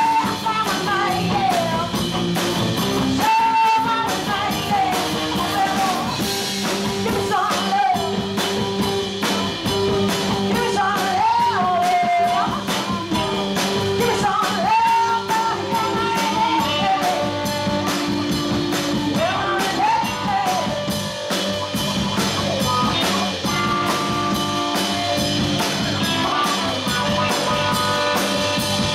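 Live rock band: a woman singing lead over electric guitar, bass guitar and drum kit. Her singing stops about two-thirds of the way through and the band plays on.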